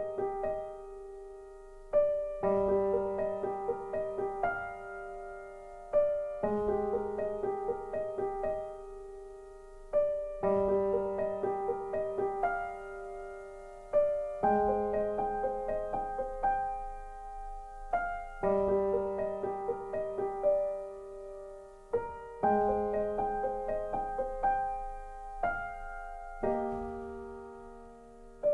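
Calm background music on piano: a slow phrase that repeats about every four seconds, each beginning with a struck chord that fades.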